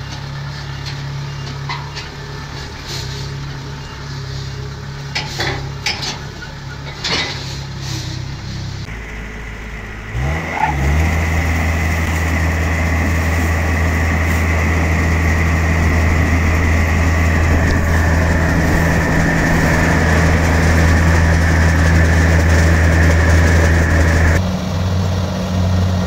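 Diesel engine of a Kubota rice combine harvester running steadily, with scattered knocks and rattles at first. About ten seconds in it runs louder, with a steady high whine over the engine note.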